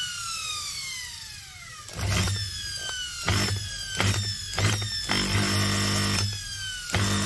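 Electric drill wired in series with a washing machine's brushed motor, its trigger squeezed in about six short bursts, each a buzzing hum, the longest lasting about a second; between bursts a whine falls in pitch as the spinning winds down. The washing-machine motor has a burnt, partly short-circuited winding, as the owner judges it.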